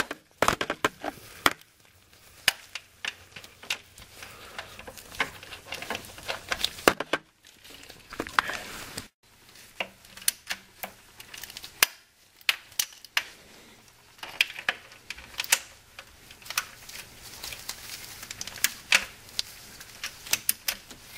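Ratchet wrench clicking in short, irregular runs while tightening a starter's lower mounting bolt from beneath the car.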